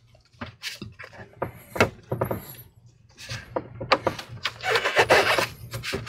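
The plastic back cover of an Acer C24-2 all-in-one PC is slid off by gloved hands. There is a series of clicks and knocks as the clips let go, and a longer scraping rub about five seconds in.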